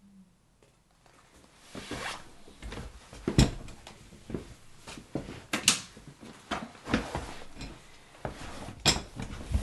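Rustling and irregular sharp clicks of something being handled close to the microphone, starting after about a second and a half of near silence.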